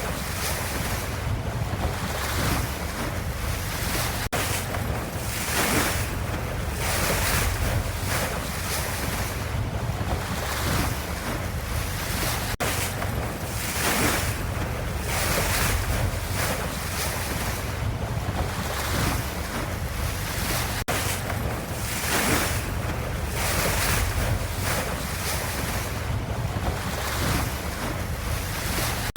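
Ocean waves: a steady rushing wash that swells and eases every second or two, with a tiny break about every eight seconds.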